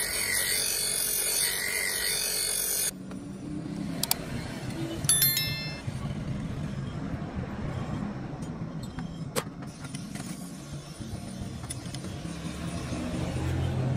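Bench grinder wheel grinding a steel blade blank, a bright, hissing grind that cuts off suddenly about three seconds in. Then comes a low, uneven engine rumble like a motor vehicle running nearby, with a short rising chime about five seconds in and a couple of sharp clicks.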